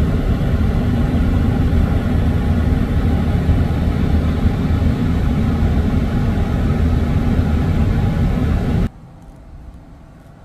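Steady low rumble of a Ford's engine idling, heard from inside the parked cab. It cuts off abruptly near the end, giving way to faint outdoor ambience.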